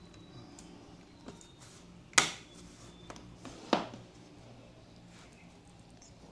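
Bottom cover of an ASUS ROG Strix G614JU laptop being handled and fitted back on: two sharp clicks about a second and a half apart, with a few fainter ticks.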